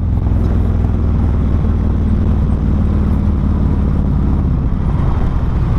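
2023 Harley-Davidson CVO's V-twin engine running steadily, a constant low drone with no change in pitch.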